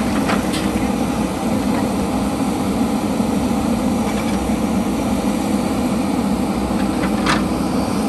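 JCB backhoe loader's diesel engine running steadily with a heavy low drone, with two brief sharp clicks, one just after the start and one near the end.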